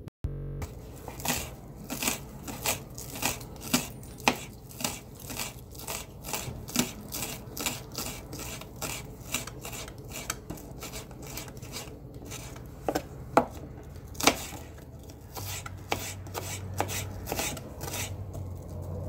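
Kitchen knife chopping garlic on a cutting board: a run of sharp, uneven taps, two or three a second, with a few louder strokes past the middle.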